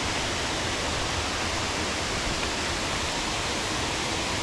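Steady rushing of water from a mountain stream or waterfall, an even, unbroken hiss.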